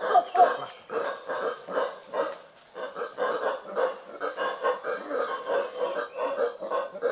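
Howler monkeys calling: a continuous run of rhythmic, pulsing grunts, about three or four a second.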